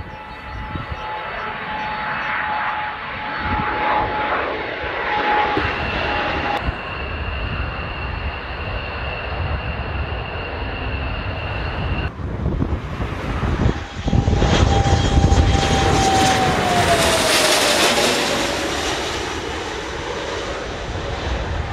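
Dassault Falcon 20 twin-jet engines running: a continuous rushing rumble with a steady whistling whine, broken by edits between clips of the jet climbing out and coming in to land. Past the middle the sound gets loudest and the whine drops in pitch as the jet passes.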